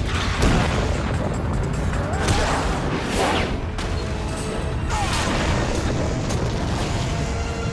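Fight-scene sound effects: several heavy impacts and crashes with swooshing noises over a low rumble, set against dramatic score music.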